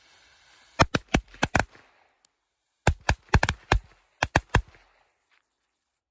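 A string of small Wolfpack firecrackers going off: about a dozen sharp cracks in two quick rattling bursts, the first about a second in and the second about three seconds in.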